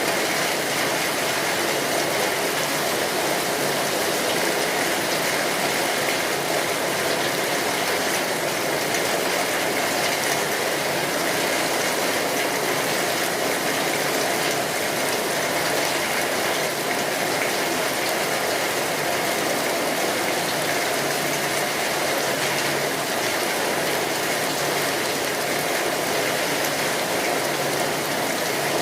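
Steady heavy rain falling on a tin roof, with the small irregular crackles of a wood fire among it.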